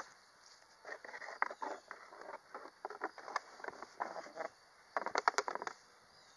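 Footsteps in grass and gravel: irregular crunching and rustling in clusters about a second in, around three to four seconds in, and again around five seconds in.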